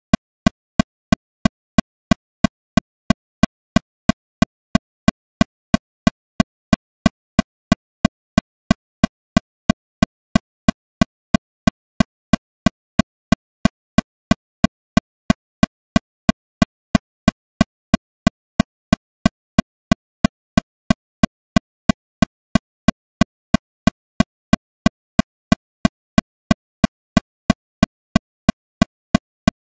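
Metronome clicking steadily at 182 beats per minute, about three short pitched clicks a second, with silence between them.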